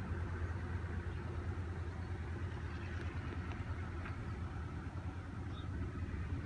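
A steady low engine rumble with no change in pitch or level.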